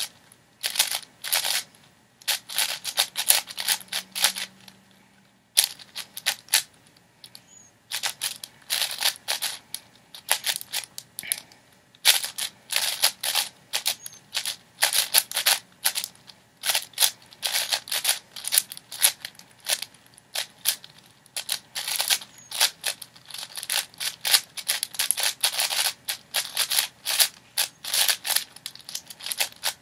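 A 6x6 speedcube turned rapidly by hand: fast runs of plastic clicking and clacking as the layers turn, broken by short pauses.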